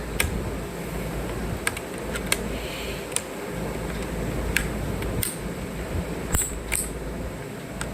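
Sharp, irregular plastic clicks, about eight spread over several seconds, as keycaps are pried off and pressed back onto the switches of a MageGee Star75 mechanical keyboard, over a steady low hum.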